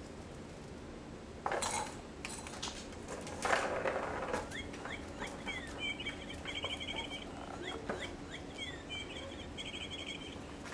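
A bird chirping: two phrases, each a few quick downward chirps ending in a rapid high trill. Two short bursts of rustling come before it.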